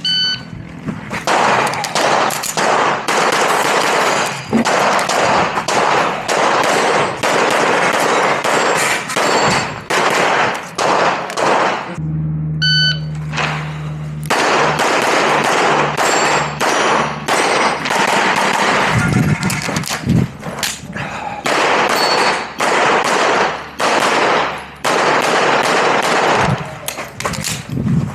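Rapid strings of pistol shots fired during an IPSC stage, with brief gaps between strings and a longer lull about 12 seconds in. A shot-timer beep sounds right at the start.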